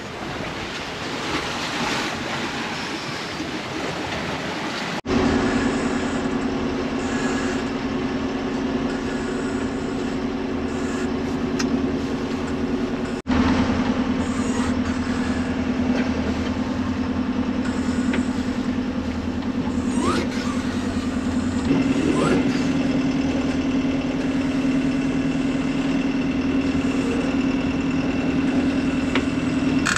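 Wind and sea rushing for the first few seconds, then a sailboat's engine running with a steady drone while motoring.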